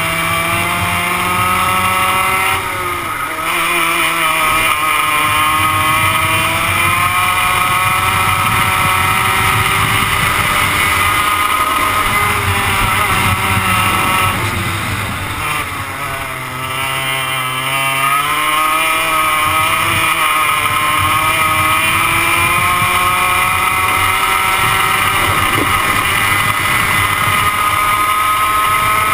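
Onboard sound of a 100cc two-stroke kart engine running at racing revs. The revs drop briefly about three seconds in and again for a longer spell around fifteen seconds in as the kart slows for corners, then climb back as it accelerates.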